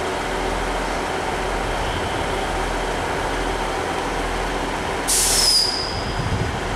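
A Northern diesel multiple unit standing at the platform, its engines idling in a steady rumble. About five seconds in comes one short, loud hiss of released air, typical of the train's air brakes, with a thin high whistle that fades over about a second.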